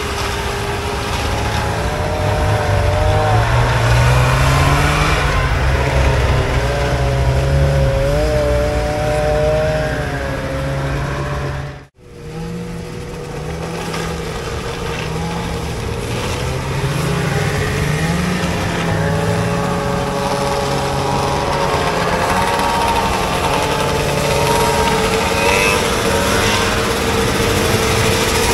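A line of vintage two-stroke snowmobiles riding past one after another, several engines revving up and down over one another as the sleds go by. The sound drops out for a moment about twelve seconds in, then the passing sleds carry on.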